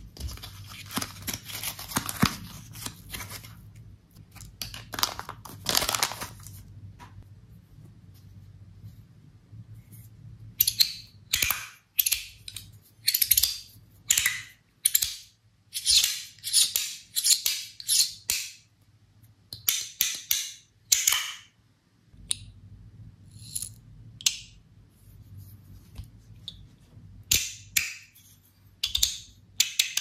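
Crinkling of a clear plastic bag of parts being handled, then repeated short rustling bursts as a white wrap is worked off a metal fidget slider. Near the end come light clicks of the slider.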